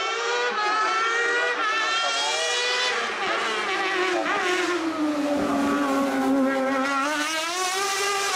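Mercedes C-Class DTM race car's V8 engine at full throttle, climbing in pitch through quick upshifts. The note then sinks as the car slows for a bend and climbs again as it accelerates away past.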